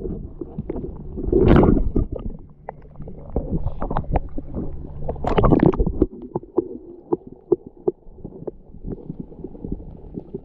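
Muffled underwater sound heard through a camera submerged in a shallow creek: a low rumble of moving water with scattered small clicks and knocks, and two louder surges about one and a half and five and a half seconds in.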